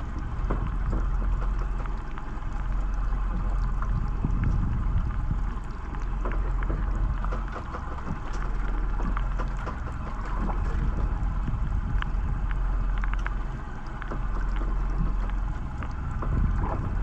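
Small fishing boat's engine running slowly, a steady low rumble, under the patter of rain and water noise; the sound swells and eases every few seconds.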